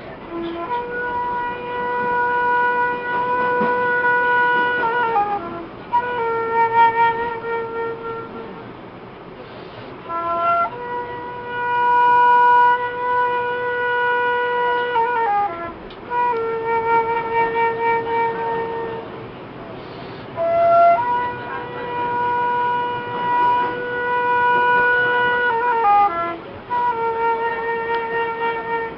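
A wind instrument playing a slow tune of long held notes, each lasting three to five seconds and ending in a short downward slide in pitch.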